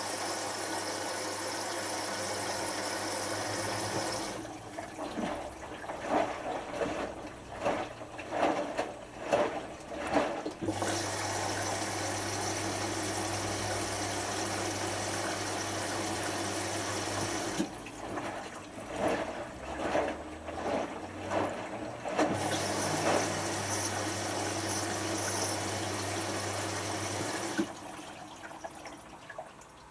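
Hotpoint HF8B593 washing machine filling for its first rinse: water rushes in through the inlet valve with a steady hiss and faint hum, stopping twice for several seconds while the drum turns and the water sloshes in uneven surges. It goes quieter near the end.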